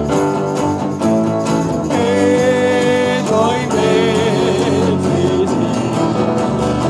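Live band music in a pause between sung lines: keyboard and guitar playing with a tambourine keeping the beat, and a held, wavering note about two seconds in.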